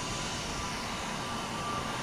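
Airbus A321neo jet engines running at taxi power: a steady rushing noise with a faint whine that grows a little louder toward the end.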